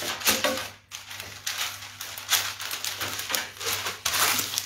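Hands rolling a breadcrumb-coated meatball between the palms: a rustling scrape in quick repeated strokes, louder about four seconds in.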